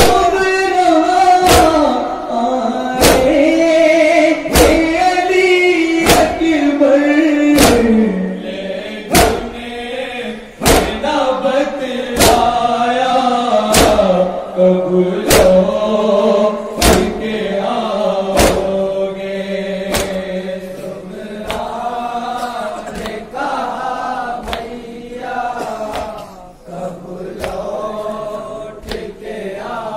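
A group of men chanting a nauha (Urdu mourning lament) in unison, with loud hand strikes of matam (chest-beating) falling together on a steady beat, about one every second and a half.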